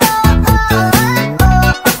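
Upbeat electronic dance music with a steady beat.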